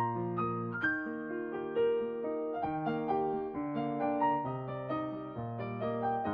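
Background piano music: a gentle keyboard melody with chords.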